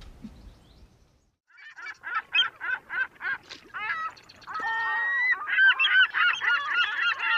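Geese honking: a string of single honks about three a second, starting about a second and a half in, then many overlapping honks of a flock from about five seconds in.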